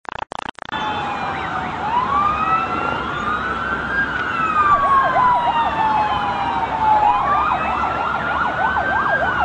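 Several emergency vehicle sirens sounding at once, their slow rising and falling wails overlapping. A faster warbling siren joins in about five seconds in and again near the end. The sound cuts in and out a few times at the very start.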